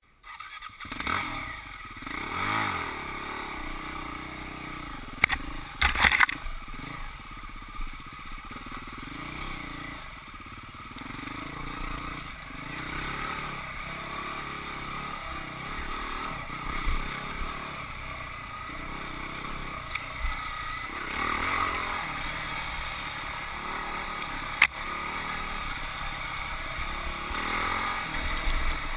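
Husqvarna 449 single-cylinder four-stroke dirt bike being ridden on a trail, its engine revving up and falling off again and again as the throttle opens and closes. There are a few sharp knocks and clatters about five to six seconds in and a single sharp crack about twenty-five seconds in.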